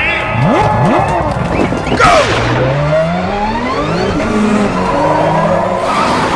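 Dubbed car engine and tyre-skid sound effects. The engine revs up and down in rising and falling glides, with a sudden louder skid about two seconds in.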